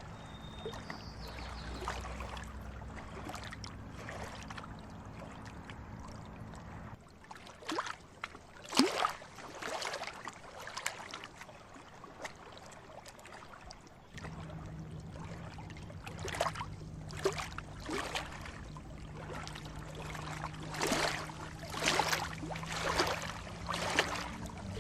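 Irregular splashes and slaps of water, with a low steady hum underneath for parts of the time.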